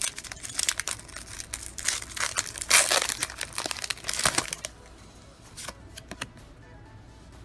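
Foil Pokémon TCG booster pack wrapper being torn open and crinkled by hand: a rapid run of crackling, loudest about three seconds in, dying away after about four and a half seconds to a few faint clicks as the cards are drawn out.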